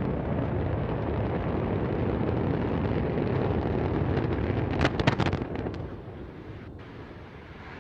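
Antares rocket's two AJ26 first-stage engines running in a steady rumble just after liftoff. About five seconds in comes a quick cluster of sharp cracks as the rocket explodes, and the sound then falls away to a quieter rumble.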